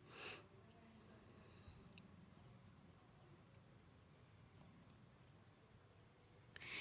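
Near silence, with faint, steady, high-pitched insect chirring in the background and a brief soft rustle just after the start and again near the end.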